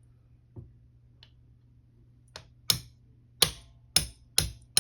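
Pin punch being tapped with a hammer to drive the hammer pin out of an AR-9 lower receiver: a few faint ticks, then from about halfway in sharp metallic taps, about two a second.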